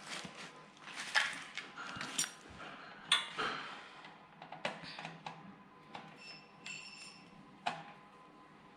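Metal tools and parts clinking and knocking in an irregular run of sharp taps, a few of them ringing briefly.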